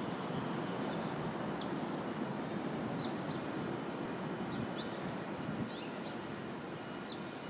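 Scattered short, high bird chirps, about nine in all, over a steady low rumble of city background noise.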